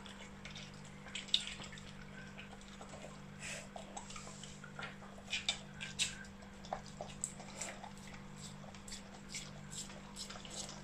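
Siberian husky puppy licking and chewing juicy watermelon flesh from a hand-held wedge: irregular wet smacks, slurps and clicks of her mouth and teeth, over a faint steady hum.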